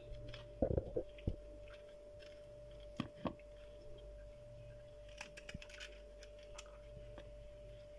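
A faint steady hum with a few soft clicks and knocks, the small sounds of food being handled in a kitchen.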